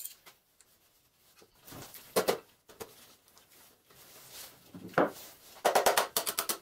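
Hand tools clicking and clinking against a cast-iron Kohler K301 engine as its external parts are unbolted, in short scattered knocks with a rapid run of clicks about a second before the end.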